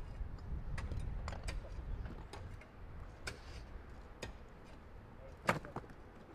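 Loose basalt stones clicking and knocking against each other as a rock is shifted by hand and feet step over the rubble. The knocks come irregularly, the sharpest about five and a half seconds in.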